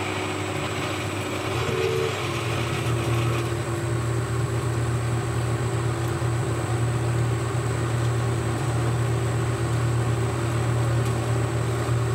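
Boxford lathe running with a steady hum while a 21/64 in twist drill in the tailstock cuts into a spinning steel bar, throwing off curled chips. The sound grows a little louder from about a second and a half in.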